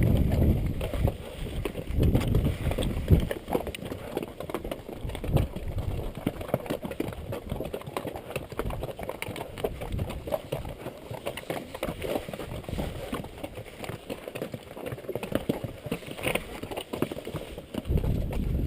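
Mule hooves clopping steadily along the trail, with strong gusts of wind buffeting the microphone near the start and again near the end.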